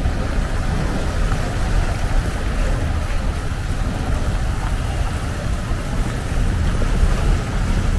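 Steady city street noise from traffic: a low rumble under an even hiss.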